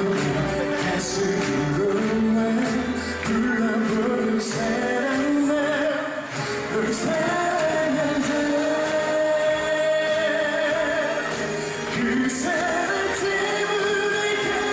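A male singer singing a Korean pop song live into a handheld microphone over band accompaniment, holding one long note about halfway through.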